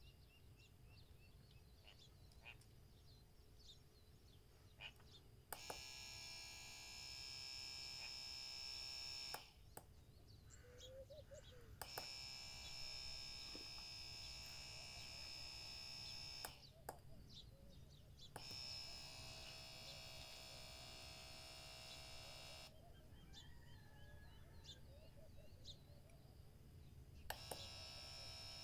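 Small brushed DC motor with a collet chuck, switched on and off by a push-button MOSFET circuit: it runs four times, about four seconds each, each run starting with a click and running with a steady high whine before cutting off suddenly.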